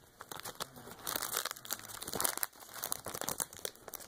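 Foil wrapper of an opened Pokémon trading-card booster pack crinkling in the hands as the cards are slid out, a run of irregular crackles that is loudest in the middle.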